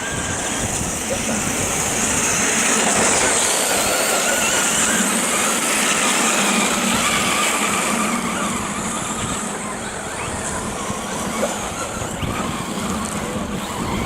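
Electric RC cars running on a track: the whine of brushless motors rising and falling in pitch with throttle, over a steady hiss of tyres and gravel.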